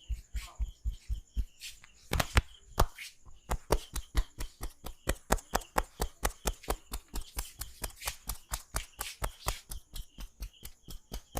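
Barber's hands tapping and slapping on a client's head in a fast, even rhythm, about five strokes a second, with a few harder strokes around two seconds in: percussive head massage.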